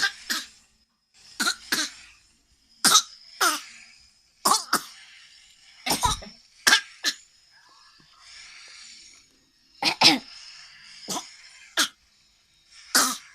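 Repeated short coughs, about a dozen in all, often two in quick succession, with pauses between the bouts.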